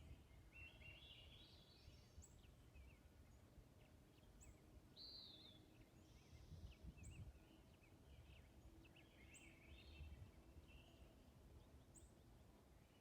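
Faint birdsong: several birds chirping and whistling, with a short high call repeating every two seconds or so, over low steady outdoor background noise.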